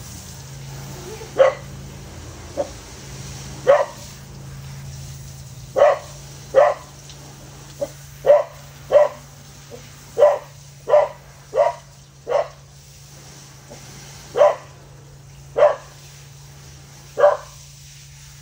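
Dog barking: about a dozen single sharp barks at uneven intervals, some in quick pairs, with a few softer yips between them.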